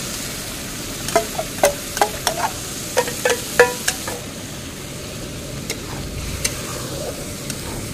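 A metal spatula knocks and scrapes against steel cookware, with a run of sharp ringing clinks in the first half, as masala paste goes into hot oil in a steel kadhai. The masala sizzles in the oil and is stirred, with a few lighter clicks near the end.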